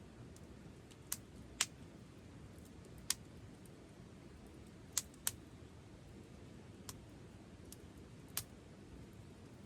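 Scattered sharp clicks, about seven in ten seconds at irregular intervals, over a faint low steady noise.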